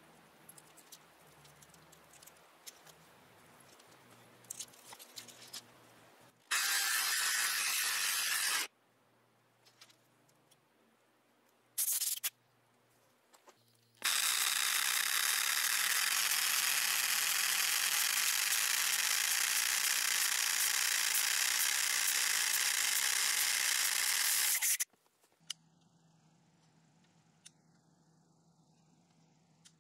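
Corded electric drill boring down into a flat stone footing pad: a steady, loud grinding drone that runs about two seconds, stops, gives a short blip near the middle, then runs unbroken for about ten seconds before cutting off.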